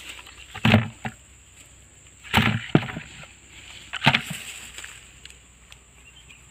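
Sweet potatoes dropped one at a time into an old paint bucket: three thuds about a second and a half apart, some followed by a lighter knock.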